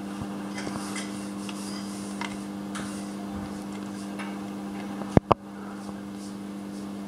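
Light metallic ticks and clicks of a hand tool working in a spark plug well of a bare 2.0-litre Hyundai engine during a compression test, over a steady low hum, with two sharp clicks close together about five seconds in.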